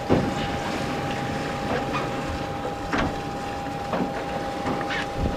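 A yacht under power, its engine giving a steady hum with a thin steady whine, and short knocks or splashes against the hull about once a second.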